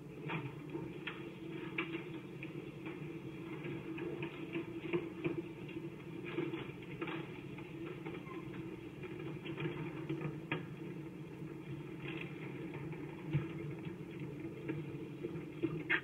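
Overhead garage door closing on its electric opener: a steady motor hum with scattered clicks and rattles as the door rolls down, muffled as if played through a television speaker.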